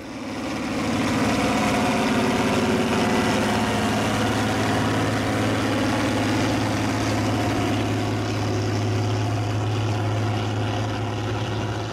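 John Deere 7020's turbocharged six-cylinder diesel engine running steadily under load as the tractor pulls a tillage disk, swelling in over the first second and then holding a steady heavy drone.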